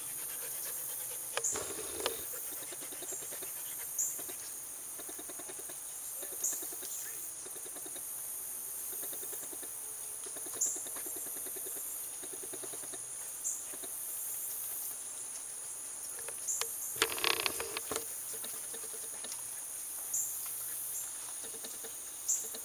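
Outdoor insect ambience: a steady high hiss with a short high chirp every two to three seconds. About 17 seconds in comes a brief noisy scuffle.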